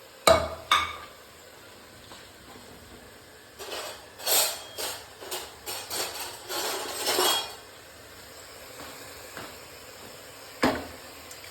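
Metal pots and kitchen utensils knocking and clinking: two sharp knocks at the start, a run of clattering and scraping through the middle, and one more knock near the end.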